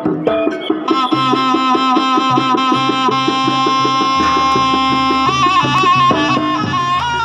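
Traditional Javanese jaranan music: a reedy, nasal shawm melody over fast, even drumming and repeating low gong-like bass notes.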